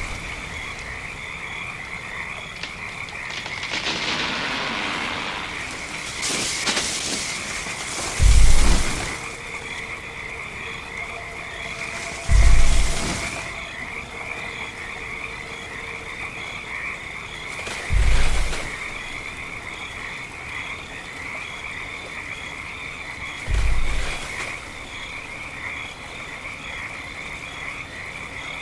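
Sound-designed giant sauropod footsteps: four deep, heavy booming thuds about five seconds apart, each fainter than the last as the animal passes. They fall over a steady night ambience of croaking frogs.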